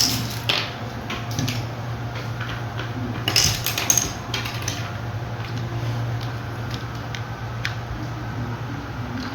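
Plastic parts of a toy airplane clicking and clattering as they are handled and the wings are fitted, in scattered sharp knocks that are busiest near the start and again about three to four seconds in. A steady low hum runs underneath.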